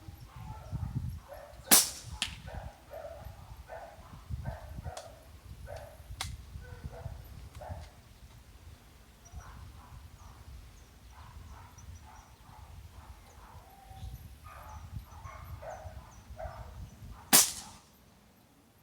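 Two shots from a Benjamin Marauder pre-charged pneumatic air rifle, each a single sharp crack, about fifteen seconds apart.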